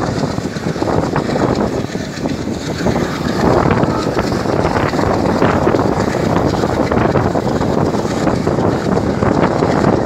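Passenger train hauled by an ALCO WDM3D diesel locomotive running at speed, heard from a coach doorway: wind rushing over the microphone with the rumble of wheels on the rails. It grows louder about three and a half seconds in.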